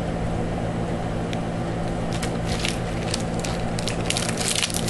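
Clear cellophane wrapper of a small washi tape roll crinkling in the hands, in scattered short crackles that come thicker in the second half, over a steady low hum.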